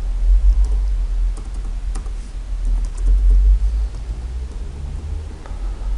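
A few light keystrokes on a computer keyboard, over a steady low hum.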